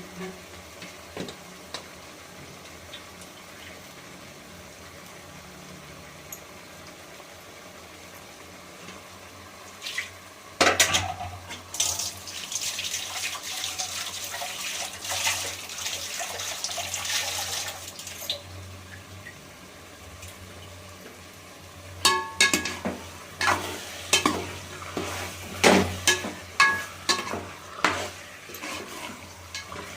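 Cooking in a pan: about a third of the way in, a clatter and then several seconds of steady hissing. In the last third, a utensil stirs the pan, clinking against it in regular strokes about once or twice a second.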